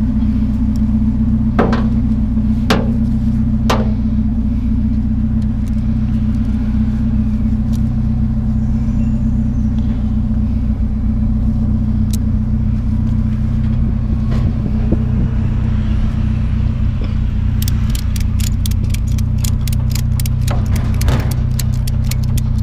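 A ratchet tie-down strap being cranked tight: a few single clicks early, then a quick run of ratchet clicks near the end. Under it runs the steady, loud drone of an idling vehicle engine.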